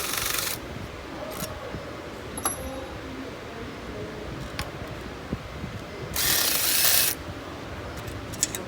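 Impact driver hammering in two short bursts of about a second each, one at the start and one about six seconds in, backing out the bolts of the air charge manifolds on an OM642 diesel engine. Light metallic clicks in between.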